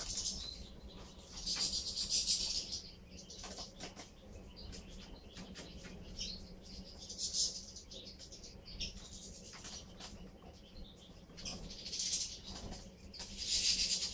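A flock of European goldfinches twittering while they feed, with several short bursts of fluttering wings as birds fly between perches.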